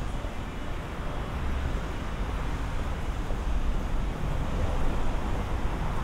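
Steady city street noise with a low traffic rumble, growing a little louder past the middle.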